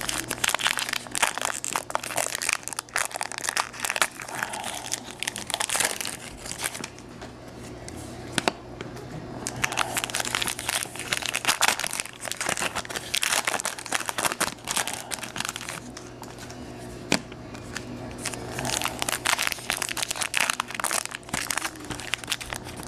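Trading card packs' foil wrappers being torn open and crinkled by hand, in bursts of rustling with short pauses between packs; the wrappers are hard to open.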